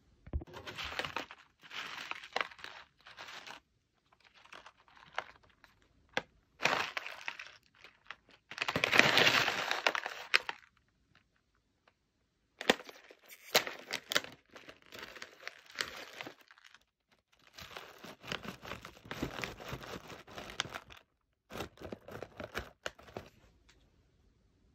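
A plastic snack pouch being handled and torn open: crinkling and tearing in separate bursts with sharp crackles among them, the loudest stretch about nine seconds in.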